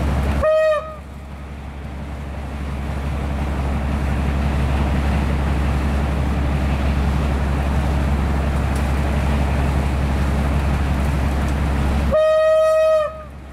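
Rotary snowplow train working through deep snow: a steady rumble with a rushing noise. It is broken by two short train horn blasts, one just after the start and one near the end, each dipping slightly in pitch as it stops. The noise drops away with each blast and builds back up gradually.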